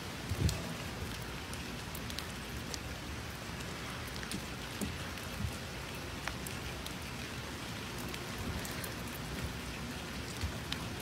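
Steady rain falling on a wooden deck, with scattered drop hits and a soft knock about half a second in.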